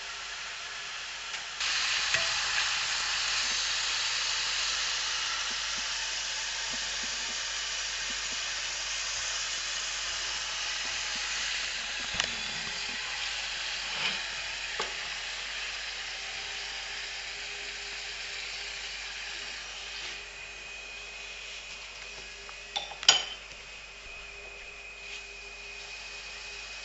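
Khvorost dough twists deep-frying in hot vegetable oil in a small pot, a steady sizzle that jumps up about one and a half seconds in and slowly fades. The spoon turning them knocks against the pot a few times, loudest near the end.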